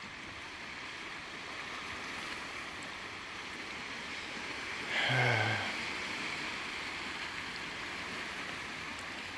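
Small waves washing steadily over a rocky shoreline from a calm sea. About five seconds in, a brief, low falling sound stands out over it for under a second.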